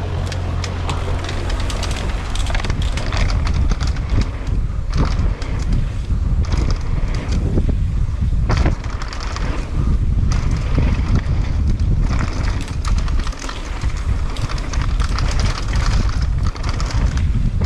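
Mountain bike descending a dirt trail: steady wind buffeting the microphone, with the rattle and knocks of the bike and its knobby tyres over bumps and rough ground.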